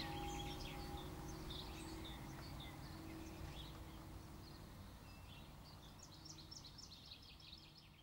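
The hum of church bells dying away after the ringing has stopped, fading steadily, while small birds chirp and twitter throughout.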